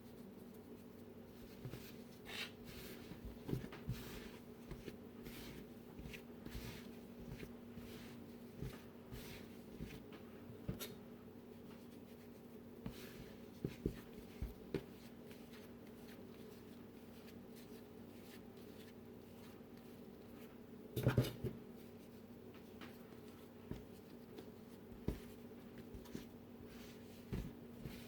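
Bread dough being kneaded by hand on a work surface: soft, irregular rubbing and knocking, with one louder thump about 21 seconds in. A steady low hum runs underneath.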